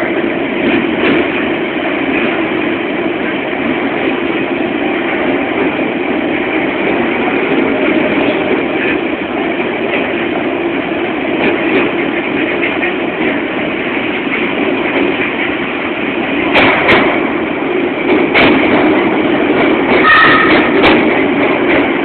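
London Underground 1992-stock Central line train running at speed through a station without stopping, heard from inside the carriage as a steady rumble of wheel and rail noise. A few sharp clacks come in the last few seconds.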